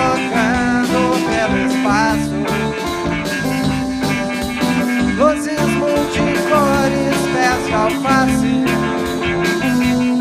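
Live rock band playing an instrumental passage: electric guitars over bass and drums, with a lead line of bent notes sliding up and down.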